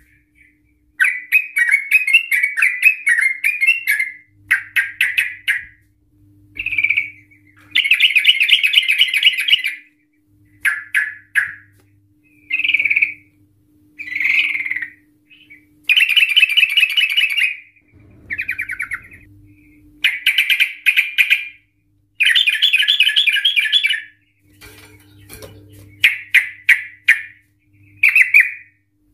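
Yellow-vented bulbul (trucukan) singing in repeated bursts: fast chattering, stuttering trills, each phrase one to two seconds long with short pauses between.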